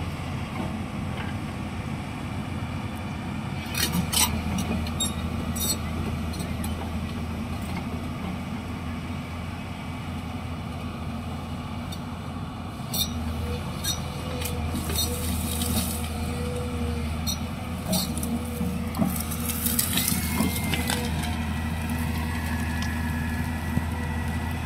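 Diesel engine of a Hyundai 215 crawler excavator running steadily while the boom and bucket work, with scattered sharp knocks and two short spells of hiss in the second half.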